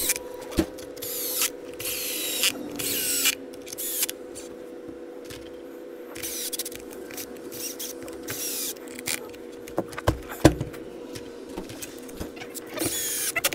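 Small power screwdriver running in several short bursts of whine, about a second each, while driving the screws of an RC truck's center shaft brace. A few sharp clicks come about two thirds of the way in, and a steady low hum runs underneath.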